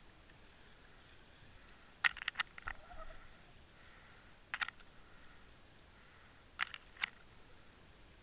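Sharp underwater clicks and taps picked up through an underwater camera housing: a quick burst of several clicks about two seconds in, then a pair of clicks near the middle and two more toward the end.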